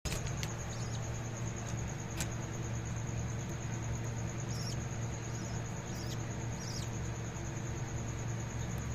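Budgies giving a few short, high, squeaky chirps while feeding, over a steady low hum and a continuous high-pitched whine.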